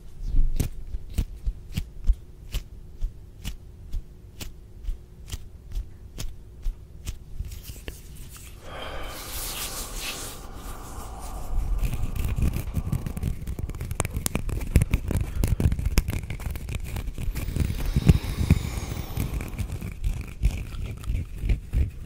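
Close-miked hand sounds. For about the first eight seconds there is a run of sharp dry clicks, about three a second. Then comes a brief hiss, and then hands and fingers rub and rustle right at the microphone with a dense crackle and soft low thumps.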